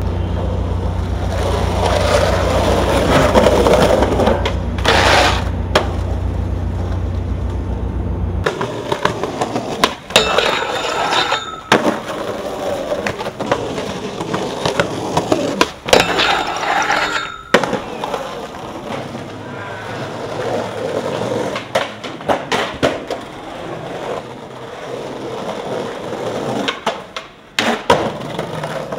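Skateboard wheels rolling over pavement, broken by the sharp clacks of tail pops and board landings several times. A steady low rumble of street traffic lies under the first eight seconds or so.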